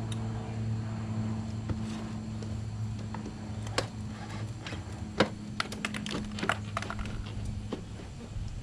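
A steady low hum, with scattered small sharp clicks and taps of hand work starting about four seconds in and growing more frequent toward the end.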